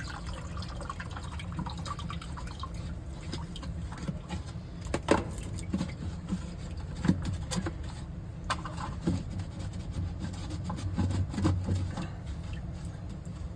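Water splashing and dripping in irregular spurts, over a steady low hum.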